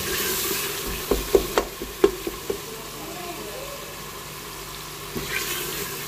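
Onion-and-spice masala frying and sizzling in a steel pot while a spatula stirs it. The spatula scrapes and knocks against the pot several times between about one and two and a half seconds in.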